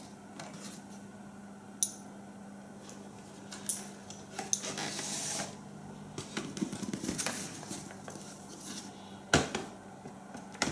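Handling noise of two black synthetic-stocked bolt-action rifles being lifted off and set down on a plastic digital scale and the table: scattered clicks and knocks with stretches of rubbing and shuffling. The sharpest knocks come about two seconds in and near the end.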